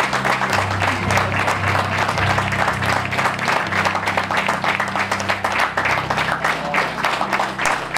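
Audience applauding steadily, with music playing underneath in held low notes that shift in pitch.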